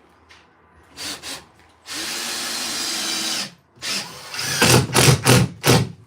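Handheld power tool running against drywall, with the drywall cracking. There is a short burst about a second in, then a steady run of about a second and a half, then several short, louder bursts near the end.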